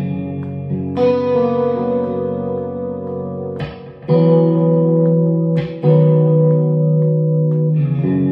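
Clean electric guitar chords on a Suhr T-style guitar through a Suhr Badger 35 tube amp with a 70s chorus effect. Each chord is struck and left to ring, with a new one every two to three seconds.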